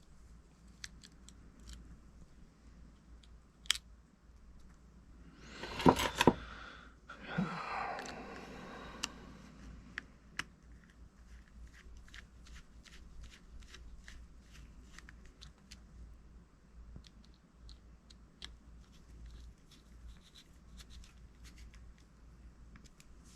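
Small parts of a fishing reel being handled and fitted together by hand: scattered light clicks, with a louder rustle and a couple of sharp clicks about six seconds in and another short rustle soon after.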